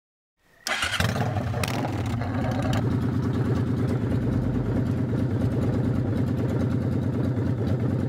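Motorcycle engine being started: the electric starter cranks briefly and the engine catches about a second in, then settles into a steady idle.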